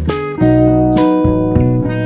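Background music: strummed acoustic guitar with a bass line and a steady beat.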